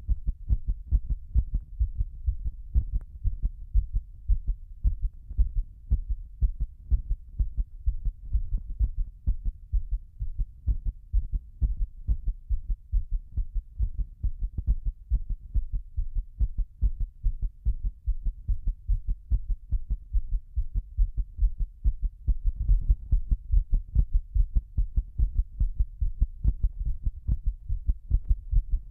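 Human heartbeat heard close up, pounding in a fast, steady rhythm of low thumps during a held breath, with no breathing in between.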